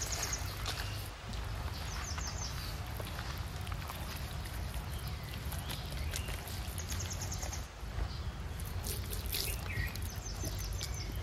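Small birds chirping, short runs of high notes heard about four times, over a steady low rumble with scattered faint clicks.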